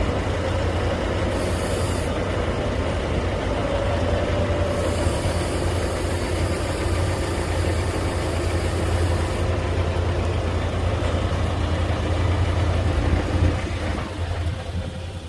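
A vehicle engine running steadily with a deep, even hum, easing off a little near the end.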